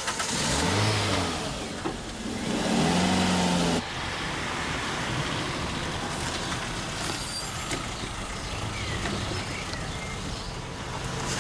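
Car engine revving as the car pulls away, its pitch rising and falling through the first few seconds, then cutting off abruptly about four seconds in. A quieter, steady street background follows.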